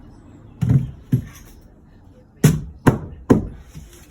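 Hammer blows on timber, knocking a cut piece into a snug fit: two blows about half a second apart, a pause, then three more at the same pace.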